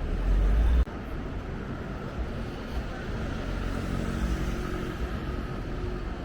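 Low vehicle rumble that cuts off abruptly under a second in, followed by a steady hum of urban vehicle noise.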